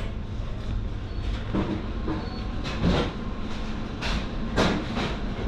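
Steady low rolling rumble in a supermarket aisle, broken by several sharp clattering knocks: one about a second and a half in, a loud one around three seconds in, and two more between four and five seconds in.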